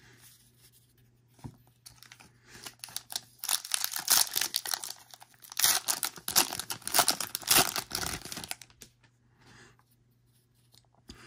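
Foil wrapper of a Topps baseball card pack being torn open and crinkled by hand: a run of crackling tears starting about two and a half seconds in, loudest through the middle, stopping a couple of seconds before the end.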